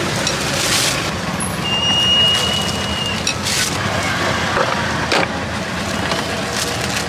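Street traffic noise: a steady vehicle rumble with several short hisses and a brief high squeal about two seconds in.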